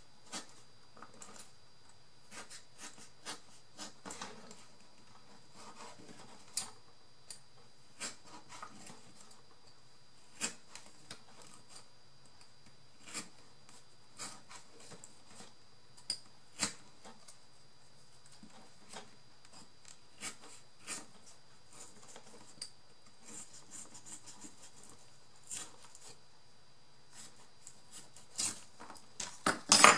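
Scissors snipping and craft materials being handled on a work surface: irregular short clicks and rustles, with a few louder sharp clicks near the end.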